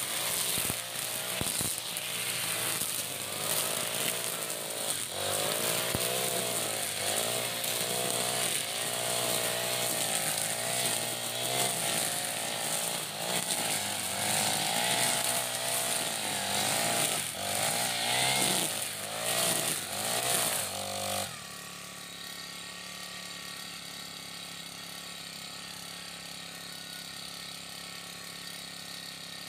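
iPower EH40 backpack brush cutter's 40cc four-stroke engine running hard as its nylon string head cuts through grass and weeds, the pitch rising and falling with the throttle. About 21 seconds in it drops suddenly to a steady, quieter idle.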